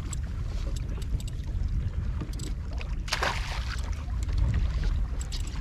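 Steady low wind rumble on the microphone over the water around a kayak, with a short splash about three seconds in at the landing net as a hooked fish is brought alongside.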